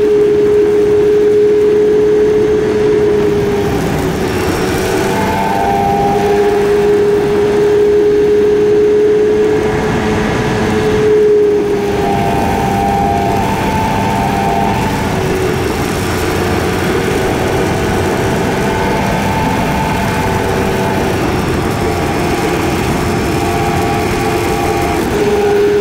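KTM Duke 250's single-cylinder engine running at a steady cruise while riding, its note holding mostly level with small dips in pitch a few times, over road and wind noise. The recording is sped up to twice normal speed, which raises the pitch.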